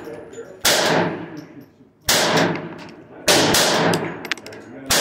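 A GSG .22 rimfire pistol fired four times, single shots about a second to a second and a half apart, each crack trailing off in echo under the range roof.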